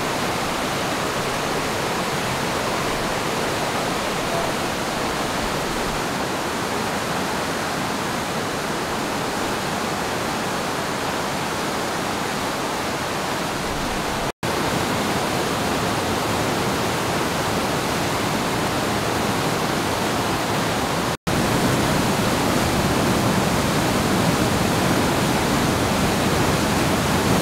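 Floodwater rushing through a river gorge as white water, swollen by heavy rain: a steady, full water noise. It drops out twice for an instant, at edit cuts, and is a little louder after each.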